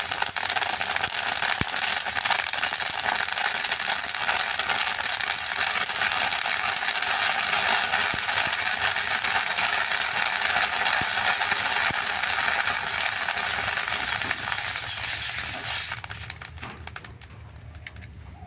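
Water lily seeds popping in hot sand in a metal karahi while being stirred: a dense crackle of tiny pops over the scrape of moving sand. It falls much quieter near the end.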